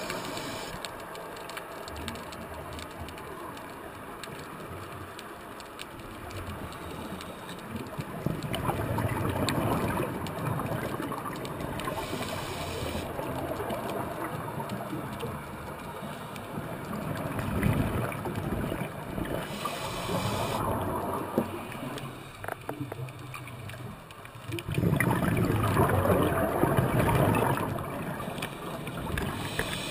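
Scuba regulator breathing heard underwater: exhaled bubbles gurgle out in louder bursts every several seconds over a steady underwater hiss.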